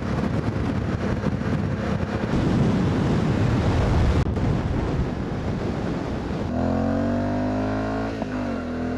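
Yamaha Ténéré 700's 689 cc parallel-twin engine running at road speed under heavy wind rush over the bike-mounted microphone. The sound breaks briefly about four seconds in. From about six and a half seconds a steady engine note with a clear pitch comes through over the wind, wavering briefly near the end.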